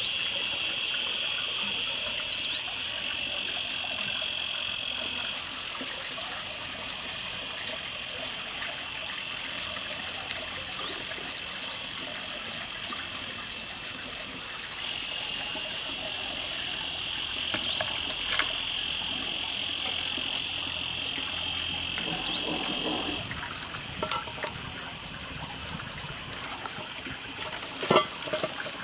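Steady high-pitched chorus of calling animals that drops away about five seconds in and returns for a stretch later, with scattered light clicks and a couple of sharper knocks near the end.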